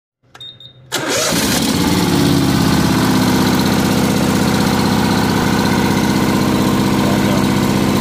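Honda riding mower's V-twin engine starting: it catches about a second in and then runs steadily at idle with an even pulse.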